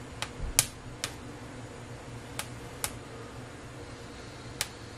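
Poblano peppers roasting directly over gas burner flames, their skins crackling with six sharp, irregular pops, the loudest about half a second in. A steady low hum runs underneath.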